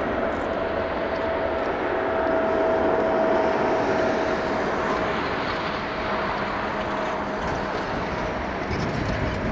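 Boeing 777-300ER's GE90 turbofan engines running at taxi power as the jet rolls slowly by: a steady rushing noise with a held whine that fades out about five seconds in.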